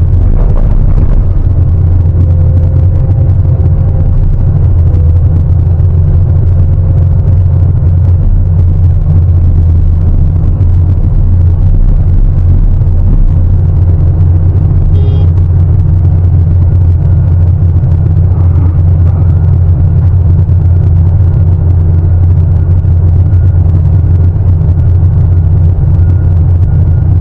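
Diesel engine of a large Sany 750 hydraulic excavator running steadily under load, a loud, even low drone.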